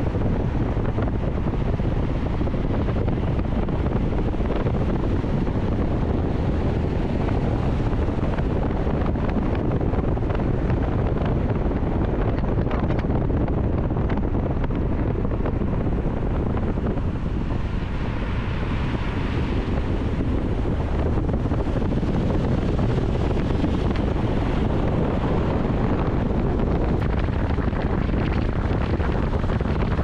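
Mazda CX-30 being driven: steady low road and tyre rumble with wind noise. About halfway through, a brief brighter swell of noise rises and fades.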